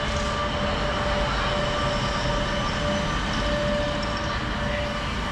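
Electric rack railway train moving slowly along the station platform: a steady rumble with a thin, steady whine over it.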